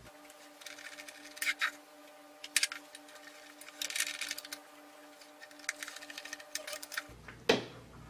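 Screwdriver driving small screws through metal mounting brackets into a 2.5-inch SSD: irregular light metallic clicks and scrapes over a faint steady hum. A louder scrape or knock comes near the end.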